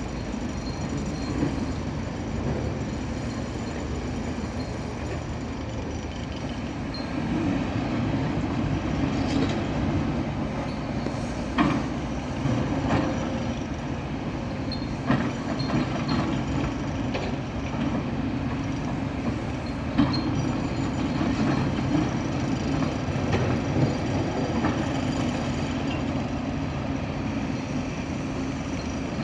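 Heavy excavators running steadily at a demolition site, with scattered sharp metallic knocks and clanks as wreckage is cut and moved.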